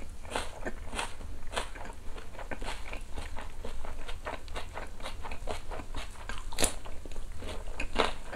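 A person chewing a mouthful of grilled pork close to the microphone: short, wet crunching clicks a few times a second, with one sharper crunch about two-thirds of the way through.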